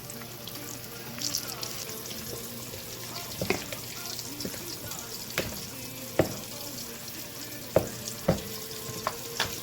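Flour-coated chicken pieces frying in hot oil: a steady sizzle, with several sharp clicks in the second half.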